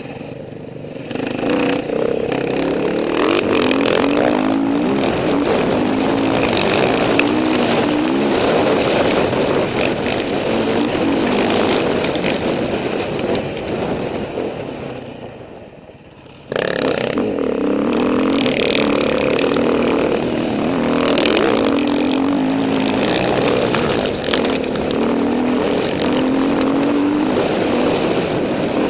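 An enduro dirt bike's engine is revving up and down through the throttle and gears as it rides a dirt trail. The pitch rises and falls over and over. It fades for a moment about halfway through, then comes back suddenly at full level.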